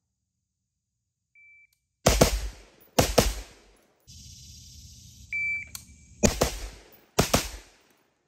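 Electronic shot-timer beep followed by two HK416 rifle shots about a second apart, each with a short ringing tail; a second, louder beep then starts another pair of shots about a second apart.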